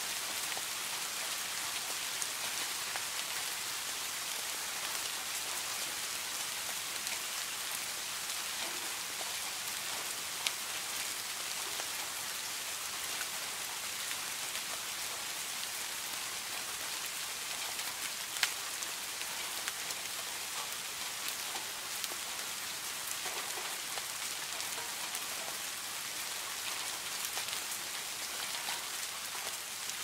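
Steady rain falling: an even hiss with a few louder single drops standing out.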